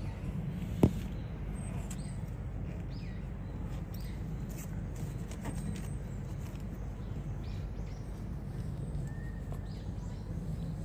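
Steady low outdoor background hum with scattered faint bird chirps, and a single sharp knock about a second in.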